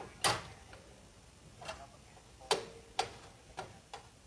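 About six sharp plastic-and-metal clicks and taps at irregular intervals, the loudest a quarter second in, as the feed-roller assembly is handled and seated in the paper-feed unit of a Risograph duplicator.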